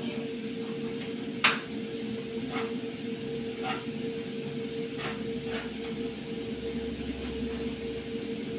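A steady hiss and low hum come from the lit gas stove, where a pressure cooker and a pan are on the burners. Over it are a few short knocks and rustles from hands tearing bread into crumbs on the counter, the sharpest about one and a half seconds in.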